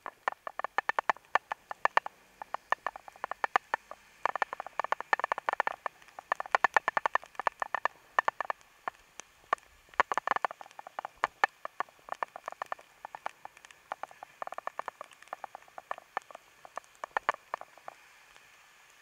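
Rapid, irregular clicking and tapping against an action camera's waterproof housing, coming in denser bursts and stopping about a second and a half before the end.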